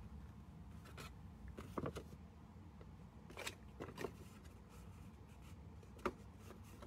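Sheet of patterned paper handled and turned over, making a few light rustles and taps, then one sharp snip from small craft scissors about six seconds in.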